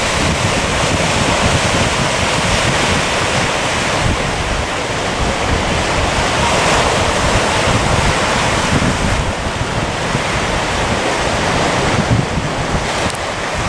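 Small waves breaking and washing over a beach of rounded stones, a steady rush of surf, with wind buffeting the microphone.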